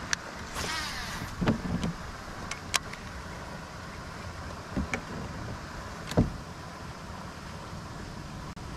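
Dull knocks on a plastic fishing kayak's hull and light clicks from handling the rod and reel, over a steady low hiss, with a brief rush of noise about a second in. The loudest knock comes about six seconds in.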